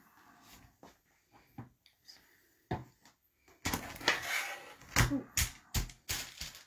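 Quilting fabric rustling as it is gathered and smoothed by hand on a cutting mat, starting a little past halfway, with several sharp knocks and clicks among the rustling.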